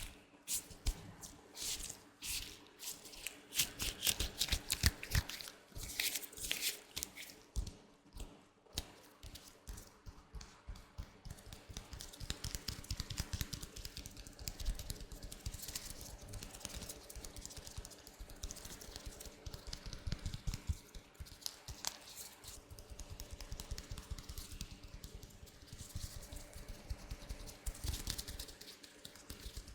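Latex gloves handled close to the microphone: irregular rubbing, stretching and crinkling. There are separate strokes at first, and about a third of the way in it turns to a denser, finer crackle.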